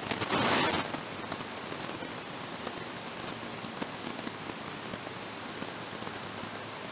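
Steady faint hiss with fine crackling, like light rain pattering, and no speech.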